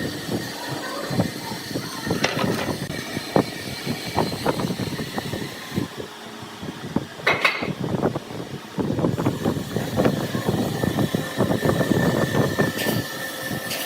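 Wood lathe running while a turning tool cuts the spinning workpiece: a dense, irregular clatter of cuts over a faint steady whine, with one sharper knock about seven seconds in.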